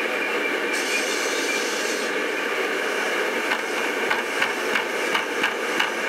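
Steady engine and road noise heard inside a moving Daimler car, with a brief higher hiss about a second in. In the second half comes a run of short, sharp rattles and clicks from the car's body or trim.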